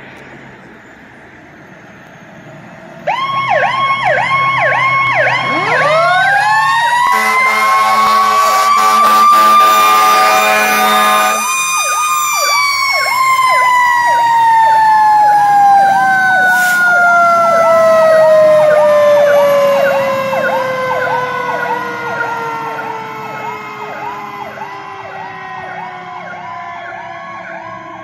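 Fire truck responding with sirens. An electronic siren yelps rapidly from about three seconds in. A mechanical siren winds up to a high pitch over several seconds, then slowly winds down. In the middle a horn sounds for about four seconds.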